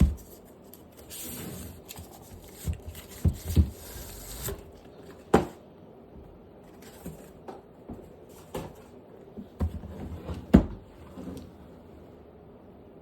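Packaging handled by hand during an unboxing: scattered knocks and clicks with some rustling, the sharpest knocks about five seconds in and again near ten and a half seconds.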